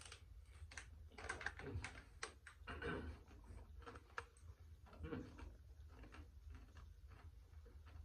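A crisp bagel chip bitten and chewed close to the microphone: a run of dry crunches that thins out after about five seconds.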